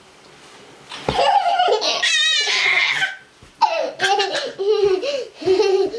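Young children laughing: quiet for about a second, then a loud burst of laughter with a high, warbling squeal, followed by a run of short laughs near the end.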